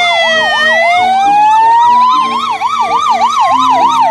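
Ambulance sirens sounding together: a fast warbling yelp of about three cycles a second over a slower wail that dips and then climbs over a few seconds.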